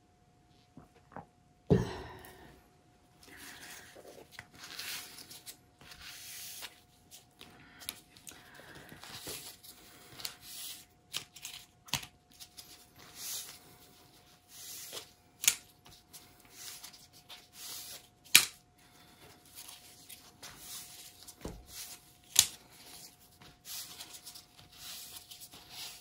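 Intermittent short rustling and crinkling handling noises, with a few sharp clicks and knocks scattered through, over a faint steady hum.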